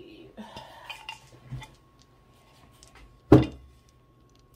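Costume jewelry and beads clinking and rattling as they are handled, then one loud knock about three seconds in as a wooden necklace display board is set down.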